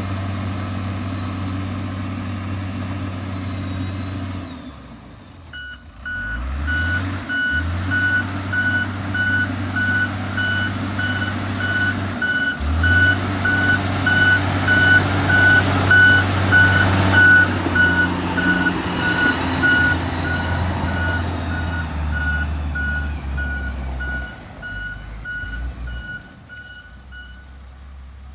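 Diesel motor grader engine running, changing pitch as it works. After about five seconds its reverse alarm starts: a rapid string of same-pitch beeps that stops shortly before the end.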